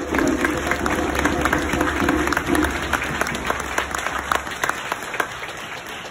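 Audience applauding, many hands clapping, the clapping thinning out and fading toward the end.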